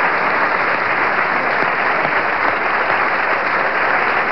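Studio audience applauding, a steady dense clapping that holds at an even level.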